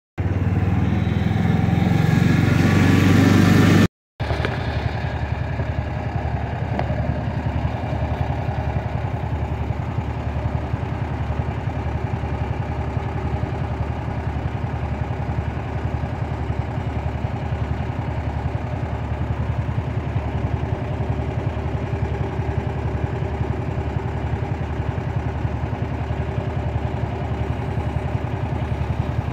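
An engine running steadily at an even speed. In the first few seconds it is louder and rougher before a break.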